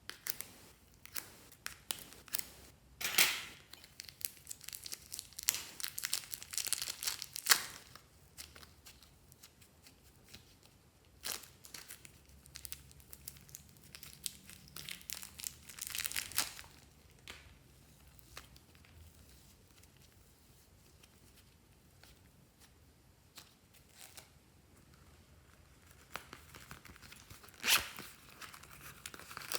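Slime being worked by hand, crackling and snapping in irregular bursts as it is pressed, stretched and pulled apart, with quieter pauses between, including a stretch of near-quiet in the middle.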